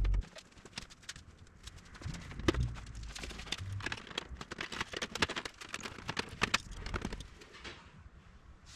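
Hand work on aluminum airframe parts: a rapid, irregular run of light clicks and taps, with a few sharper knocks in the middle.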